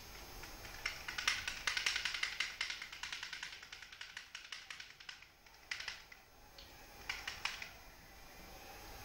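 Quick light clicking, several clicks a second, in a run of a few seconds and then in a few short bursts.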